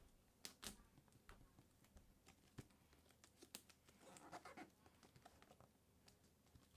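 Faint handling noises at near-silent level: scattered light clicks and scratches, with a faint murmur a little after the middle.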